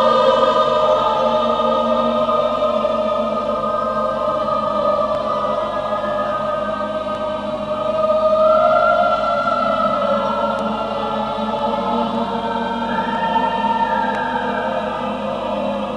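Choral music: a choir singing long held notes that shift slowly.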